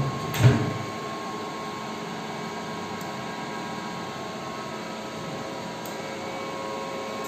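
CNC lathe's guard door shutting with a brief loud thump about half a second in. After that comes the machine's steady idle hum with a few steady tones, and two faint clicks later on.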